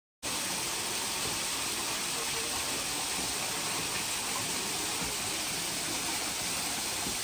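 Small waterfall: a thin stream of water spilling down granite boulders, a steady rushing splash that cuts in abruptly a moment in.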